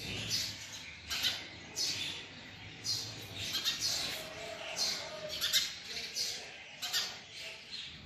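Female house sparrow calling: short, harsh chirps repeated irregularly, about one or two a second.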